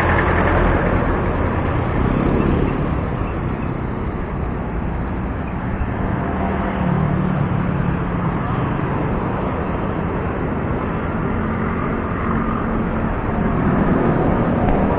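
Road traffic noise: a steady rush of vehicles with a low engine hum that swells twice partway through.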